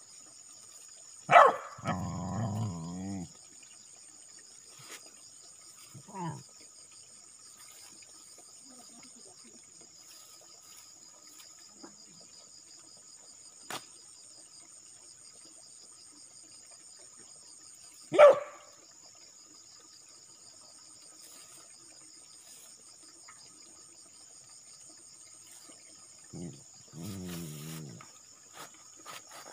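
A dog barks sharply once about a second in and again near the middle, with a few shorter, lower calls after the first bark and again near the end. Over it all runs a steady, high-pitched chirring insect chorus.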